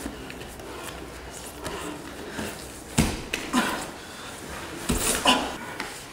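Two wrestlers grappling on floor mats: breathing and short grunts with bodies shifting on the mats, and sharper sounds about three seconds in and twice about five seconds in.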